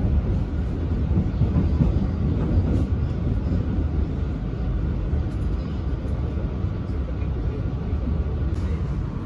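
Menoreh economy-class passenger train running along the line, a steady low rumble with no distinct clicks.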